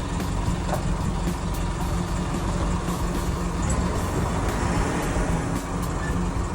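Diesel engine of a Unic truck-mounted crane running steadily.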